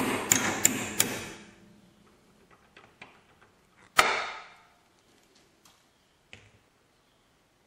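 Hammer tapping a small steel pin punch to drive out the retaining pin of a Saiga 12 recoil spring assembly held in a vise: about four quick ringing metal taps in the first second. A single sharp metallic clack comes about four seconds in, followed by a couple of faint clicks.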